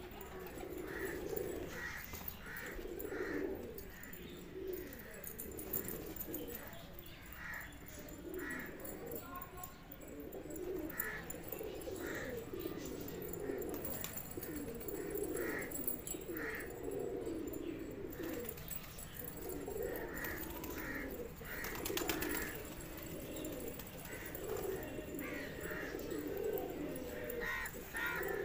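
A flock of fancy domestic pigeons cooing continuously, many birds overlapping, with short higher-pitched bird calls repeating about once a second over the cooing.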